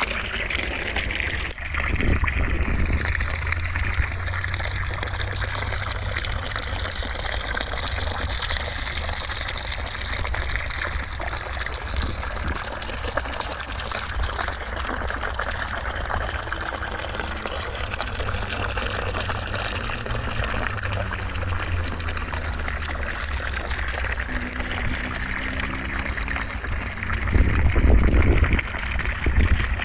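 Steady rushing white noise, with a brief dip about a second and a half in and a louder low rumble near the end.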